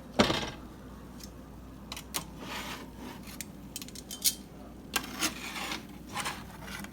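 Metal cookware and utensils being handled: a sharp clack about a quarter second in, then scattered clinks, taps and brief scraping swishes.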